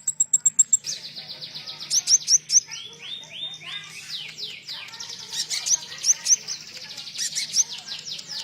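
Konin songbird singing a rapid, high-pitched song. It opens with a fast trill of repeated notes, then runs into quick strings of chirps and down-slurred whistles, over a faint low hum.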